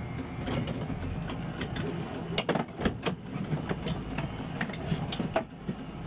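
Steady low rumble of an idling car engine, with a run of sharp, irregular clicks in the middle of the stretch.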